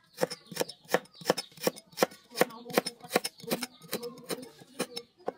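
Knife chopping on a cutting board: a steady run of sharp strikes, about three a second.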